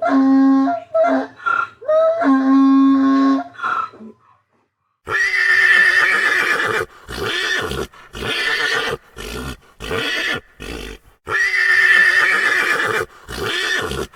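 Farm animals calling: a few short, clear pitched cries, a brief silence about four seconds in, then a run of loud, harsh calls of one to two seconds each.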